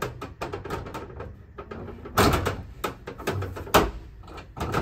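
Knocks and rattles of a metal wall beam being worked into place against a van's sheet-metal wall, with a louder scraping clunk a little after two seconds and a sharp knock just before four.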